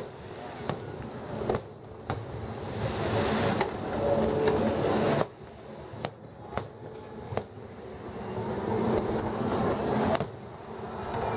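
Aerial fireworks shells bursting: about ten sharp bangs at irregular intervals, some close together, over a continuous rumbling background.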